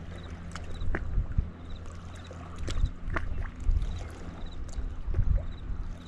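Wind buffeting a camera microphone in gusts, a low rumble that swells about three times, with scattered sharp clicks.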